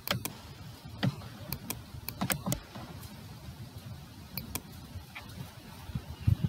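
Computer mouse clicks: about ten short, sharp clicks at irregular intervals, several in quick pairs, over a faint low rumble.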